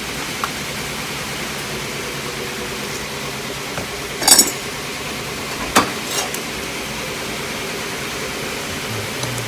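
Metal milling tooling (collets and tool holders) clinking and knocking as it is handled: a short cluster of clinks about four seconds in and two more knocks a couple of seconds later, over a steady background hiss.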